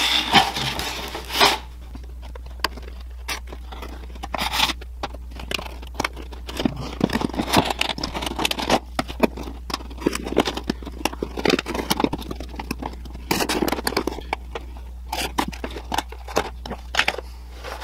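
A box cutter blade sawing through the thin plastic wall of a motor oil jug, giving an irregular run of scratchy cutting strokes and clicks. The strokes are sparse for the first few seconds and come thicker from about six seconds in.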